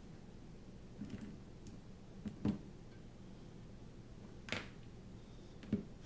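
Scattered light clicks and knocks of a metal helping-hands stand's arms and alligator clips being repositioned on the bench, about five in all, the loudest about two and a half seconds in, over a faint steady low hum.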